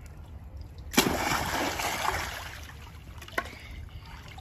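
A child dropping into the water of a shallow inflatable pool: one loud splash about a second in, then spray falling back and the water settling over the next second or so.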